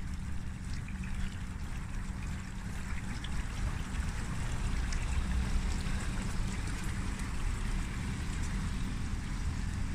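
Wind rumbling on a phone microphone over a steady rushing hiss.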